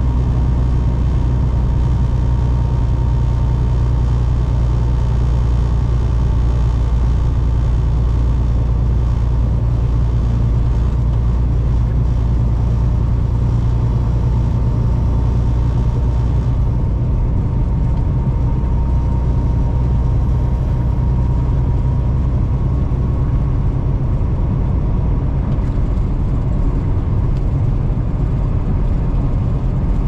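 Kenworth semi truck driving, its engine and road noise making a steady low drone with a faint whine above it.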